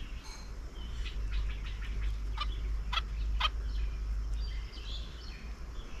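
Birds calling and chirping, with three sharp calls in quick succession about halfway through, over a steady low rumble.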